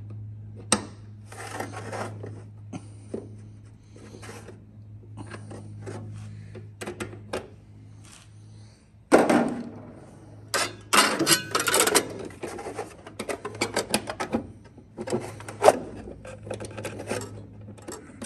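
Hands working on aluminium wing-root parts and metal fuel-line fittings: rubbing and scraping with small metal clicks and clanks, busier and louder from about nine seconds in. A low steady hum runs underneath and stops just before that.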